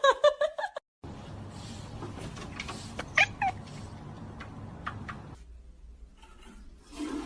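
A domestic cat meowing: one short call about three seconds in, over low steady background noise.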